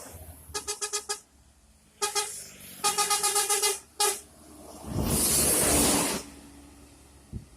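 Indonesian bus telolet horn playing rapidly pulsing musical tones, about nine pulses a second, in several short bursts. A loud hiss of about a second follows near the end.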